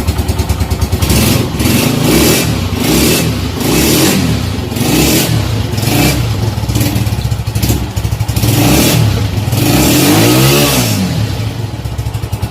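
Road Prince RP 125 motorcycle's single-cylinder 125 cc four-stroke engine running and revved again and again, the throttle opened and let back several times, with a longer rev up and down near the end.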